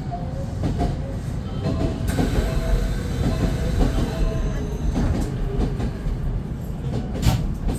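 Semboku 9300-series electric commuter train running on the rails, heard from inside the leading car: a steady low rumble of wheels and traction gear, with a few sharp clicks as the wheels cross rail joints, the loudest near the end.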